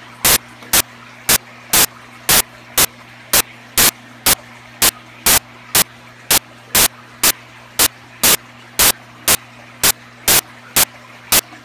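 Loud, sharp clicks repeating evenly about twice a second over a steady low hum.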